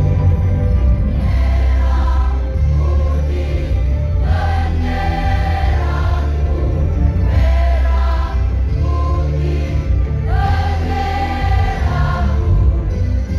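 Choir singing a song in several voices over an accompaniment with a heavy, steady bass.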